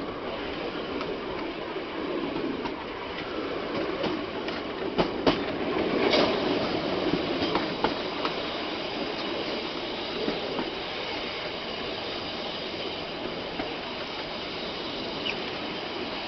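Train carriages running along the track, a steady rumble with the wheels clicking and clanking over the rails. It grows louder about four seconds in, with a couple of sharp clanks, then settles back to a steady run.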